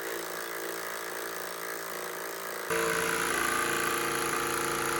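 Machine engine running steadily at idle, with an abrupt jump to a louder level about three seconds in.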